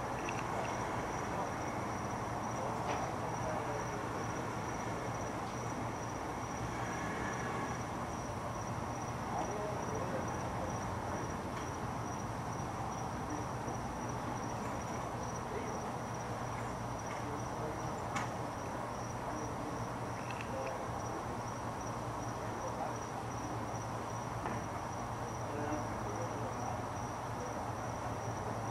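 Cricket chirping steadily, a high note pulsing evenly, over a steady low hum and background hiss. A couple of faint clicks sound, one early and one about two-thirds of the way through.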